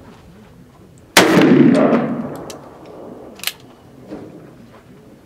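A single shot from a .480 Ruger five-shot single-action revolver with a 4 5/8-inch barrel, about a second in. Its report echoes and rolls away over roughly two seconds. A sharp click follows a couple of seconds later.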